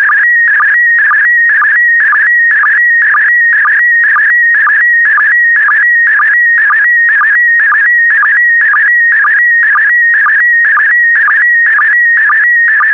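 Slow-scan TV signal in PD120 mode: a steady warbling tone near 2 kHz, broken by a short sync pulse about twice a second, each break starting the next pair of picture lines being sent.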